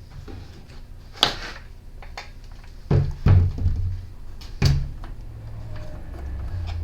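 Clunks and knocks of the trimmer and its parts being handled on a workbench: a sharp knock about a second in, a cluster of heavier thuds around three seconds, and another thud near five seconds.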